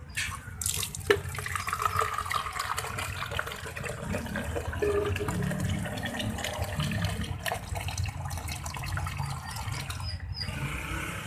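Water pouring and splashing steadily into a cut-down plastic bottle, with one sharp click about a second in.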